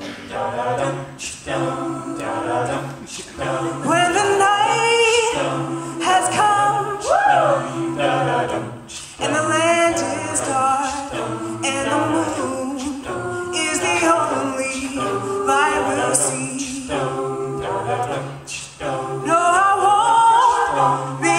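A mixed-voice a cappella group singing: a lead voice over backing harmonies and a sustained low bass line.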